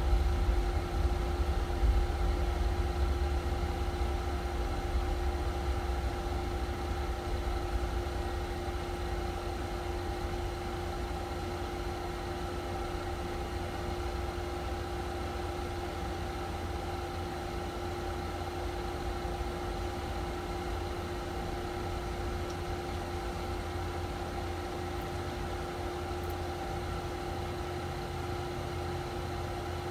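Steady mechanical hum: a low rumble under a few constant tones, easing off a little over the first several seconds and then holding even.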